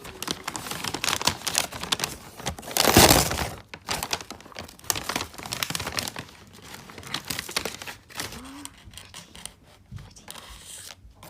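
Crinkling and tearing of a wrapper or bag: dense, irregular crackling, loudest in a burst about three seconds in, then thinning out toward the end.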